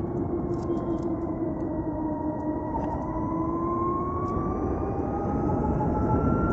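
Ather 450X electric scooter riding, its motor whining over a steady rush of wind and road noise. The whine dips slightly in pitch and then rises about halfway through as the scooter picks up speed.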